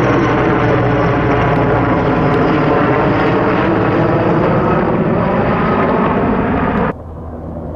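Sikorsky S-64 Skycrane (Erickson Air-Crane) helicopter flying low overhead: loud, steady twin-turbine and rotor sound with a high whine falling slightly in pitch. It cuts off suddenly near the end, leaving a fainter steady drone.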